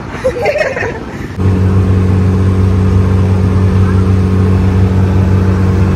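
Passenger ferry's engine running steadily, a loud low hum heard inside the cabin. It cuts in suddenly about a second and a half in.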